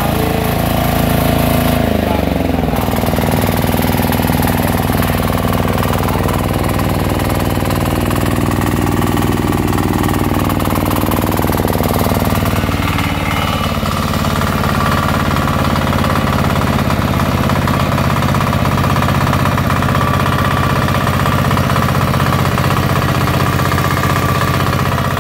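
13 HP Tianli 192F single-cylinder air-cooled diesel engine running. Its speed drops about two seconds in, then it holds a steady speed.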